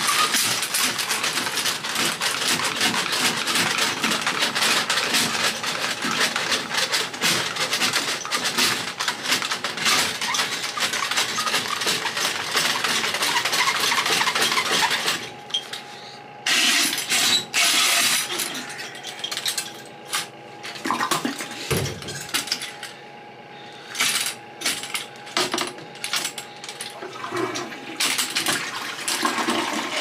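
RIDGID closet auger cranked in a plugged toilet bowl: the steel cable rattles and clicks against the tube and porcelain, with water sloshing. About halfway the steady rattling stops and gives way to short bursts of rattling and water over a faint steady tone.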